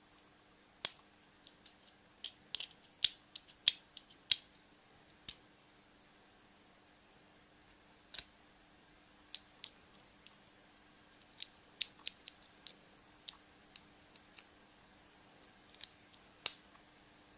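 Irregular sharp clicks and crackles of hands handling a chocolate surprise egg, its foil wrapper and its plastic toy capsule. The clicks are thickest in the first few seconds, sparser after, with one loud snap near the end.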